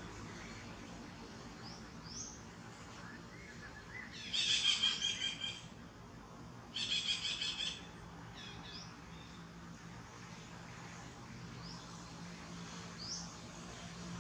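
Birds calling outdoors: two loud, rapid trilled calls about four and seven seconds in, with a few short rising chirps between, over a faint steady low hum.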